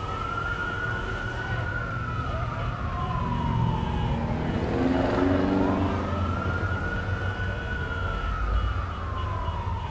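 Emergency vehicle siren in a slow wail, twice: each cycle climbs quickly and then sinks gradually over about five seconds. Low city traffic rumble runs underneath.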